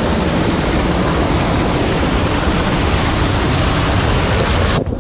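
Waterfall cascading over rock right at the microphone: a loud, steady rush of falling and splashing water that cuts off suddenly near the end.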